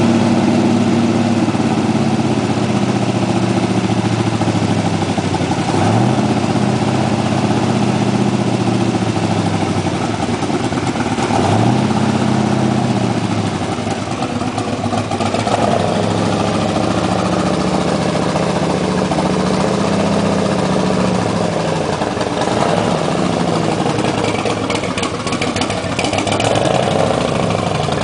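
1967 Corvette's 427 cubic-inch, 435 hp big-block V8 running, revved up briefly twice and falling back to idle each time, then held at higher revs for several seconds as the car moves off on its first test drive.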